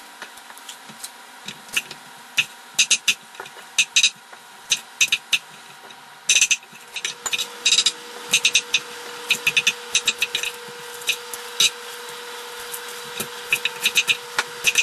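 Knife chopping on a cutting board: irregular, quick, sharp taps, often in short runs of several strokes.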